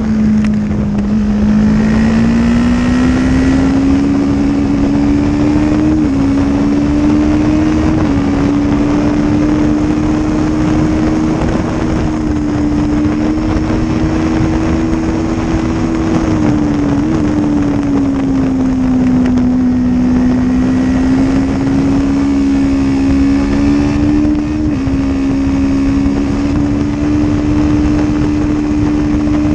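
Honda CB500 parallel-twin race engine running under load on track, its revs rising and falling slowly with a few brief steps in pitch, over heavy wind rush on the onboard microphone.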